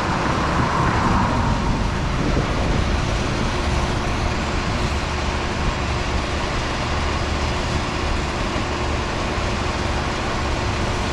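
Steady rumble of road traffic, with a louder swell in the first couple of seconds as a vehicle passes close by.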